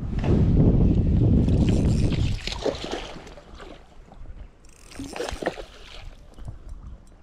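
Water splashing and sloshing in shallow lake water as a landing net is worked through it: a loud churning for about the first two seconds, then shorter splashes a little later and again near the middle of the second half.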